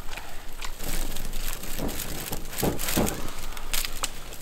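Lamb sizzling and crackling on a smoking charcoal grill, with irregular sharp crackles throughout and close chewing of the grilled meat.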